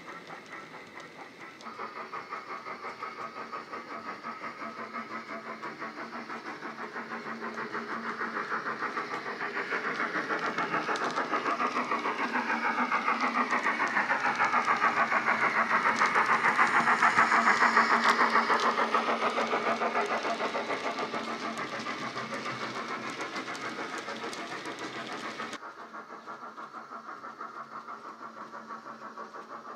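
Digital steam-locomotive sound from a Bachmann 9F model's LokSound 5 decoder (Wheeltappers 9F sound) through its EM1 speaker: a steady rapid beat of exhaust chuffs. It grows louder as the model comes towards the microphone, is loudest just past the middle, then fades away.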